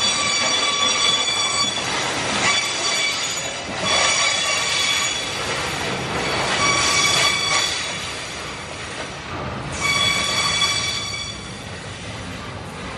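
Freight wagons loaded with eucalyptus logs rolling past with a steady rumble, their steel wheels squealing in high, whistling spells that come and go every second or two. The squeal fades as the last wagon goes by near the end.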